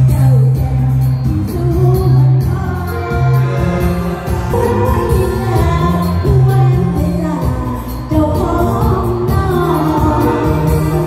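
Live amplified band music: an electronic arranger keyboard plays with a strong, steady bass line while a singer sings through the PA.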